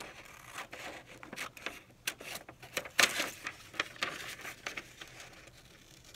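Small scissors cutting a sheet of white computer paper: a run of short snips with the paper rustling as it is turned, the loudest snip about three seconds in.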